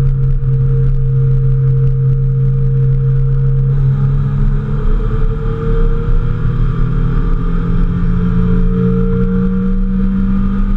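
Mazda Miata's four-cylinder engine pulling under load, heard from inside the cabin. Its note holds steady for the first few seconds, changes about four seconds in, then rises slowly in pitch as the car accelerates.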